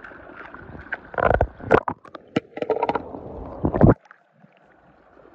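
Swimming-pool water sloshing and splashing close by in uneven bursts, stopping abruptly about four seconds in and leaving only a faint hiss.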